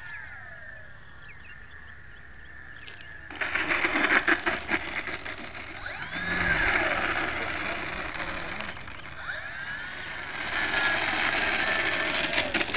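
Electric motors and propellers of FMS PT-17 Stearman radio-control biplanes whining, the pitch rising and falling as the models pass and manoeuvre. About three seconds in, a loud rushing noise with crackles starts suddenly and continues under the whine.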